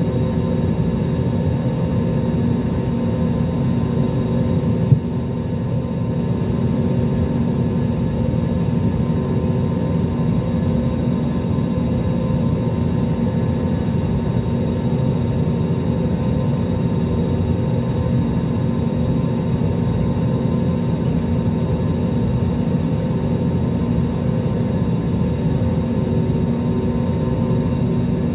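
Airliner's jet engines idling, heard inside the cabin as a steady low rumble with a steady whine over it. One brief click about five seconds in.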